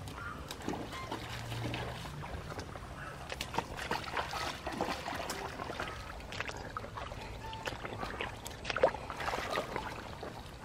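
Wading in rubber boots and digging by hand in shallow muddy water: irregular splashes, sloshes and trickles, the sharpest about nine seconds in.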